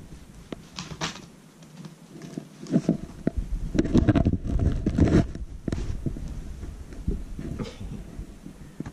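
Scuffling, tapping and soft thumps of a kitten at play with a cat teaser toy on tatami mats, with a louder stretch of bumping and low rumbling about four to five seconds in.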